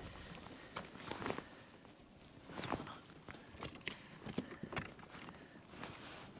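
Scattered faint clicks and knocks of hands working a small brown trout free of the hook in a kayak, irregular and a few each second.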